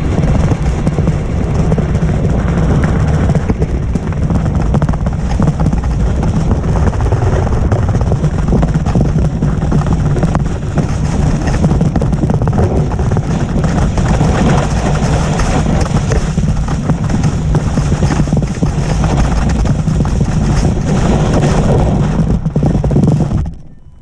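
Skis running over packed snow, picked up through a camera mounted on the ski: a loud, constant scraping rumble with a crackly chatter and wind buffeting the microphone. It drops off sharply near the end.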